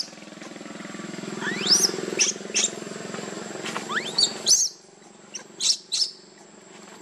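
Baby macaque crying in a series of short, high squeals that each rise sharply in pitch, the loudest about two and four seconds in. Under them runs a steady low hum that drops away about halfway through.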